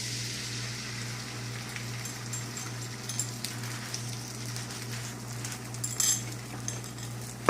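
Beaten eggs sizzling in a greased frying pan, a steady hiss that slowly fades, with a few light clicks and a low steady hum underneath.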